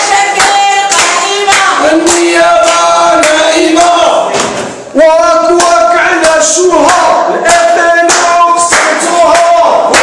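Crowd of protesters chanting slogans in unison to rhythmic hand clapping; the chant falls away briefly about five seconds in and starts again.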